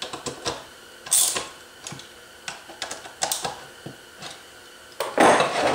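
A hand tool turning the threaded screws that compress the clutch plates of a Zündapp scooter engine: irregular light clicks, two or three a second, with a louder burst of noise lasting under a second near the end.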